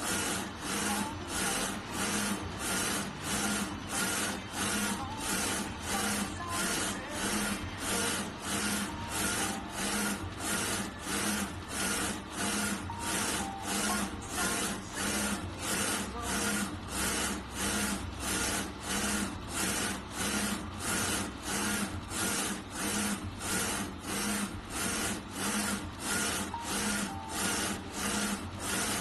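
6090 UV flatbed printer printing, its print-head carriage shuttling back and forth in a steady rhythm. The running hiss swells and dips about twice a second, once with each pass.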